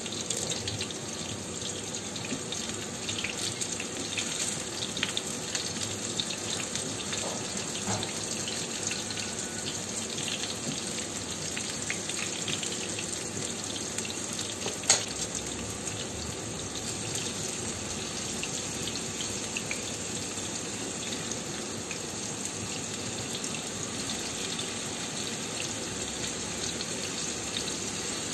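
Tofu frying in hot oil: a steady crackling sizzle, with one sharp click about halfway through.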